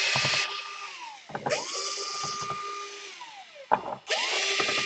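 Small electric screwdriver backing out laptop case screws: it spins up, runs for about a second and winds down, three times in a row. Short clicks come between the runs.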